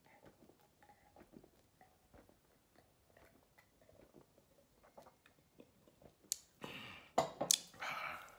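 Faint gulping and mouth sounds as a man drinks from a bottle. About six and a half seconds in comes a loud, breathy burst of breath and voice, the loudest part.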